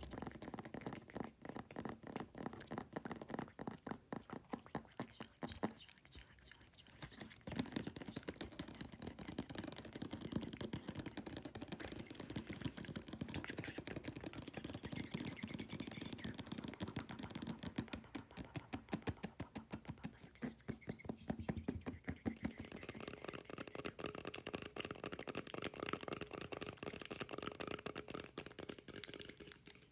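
Very fast fingernail tapping, a dense run of small clicks, layered with close-up mouth sounds. The tapping thins out briefly about six seconds in.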